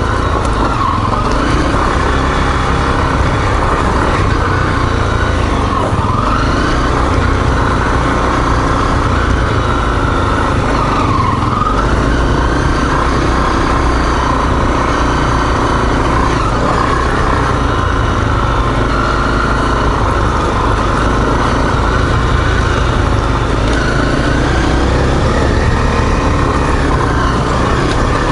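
Single-cylinder four-stroke dual-sport motorcycle engine running steadily under a rider on a rough trail, its pitch rising and falling a little with the throttle and dipping briefly about eleven seconds in.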